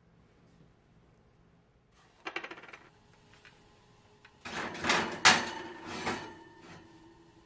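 A short metallic rattle about two seconds in. Then a ceramic baking dish is slid onto a wire oven rack: dish scraping and clinking on the metal bars, with a loud clank about five seconds in and the rack ringing briefly after.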